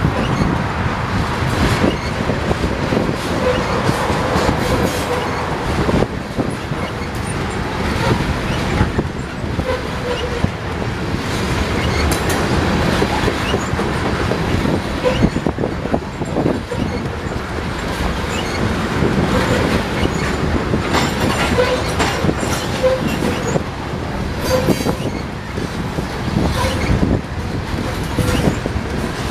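Freight train covered hopper cars rolling past close by: a steady rumble of steel wheels on the rails, with irregular clicks and clacks and brief squeaks.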